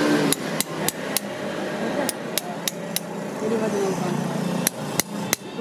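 Hammer striking a steel blade held against a horse's hoof to pare the hoof wall: sharp metallic taps in three short runs of three or four blows, about three a second, with pauses between.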